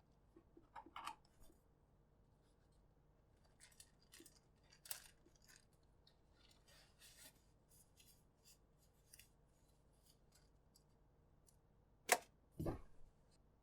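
Sparse small clicks, snips and light scraping of hand work on keyboard-build parts, with a sharper click and a short rattle near the end.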